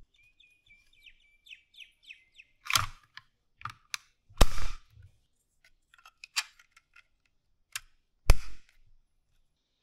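Parts of a 3D-printed plastic toy gun being fitted together and handled: a string of sharp plastic clicks and knocks, the loudest two about four and a half and eight seconds in.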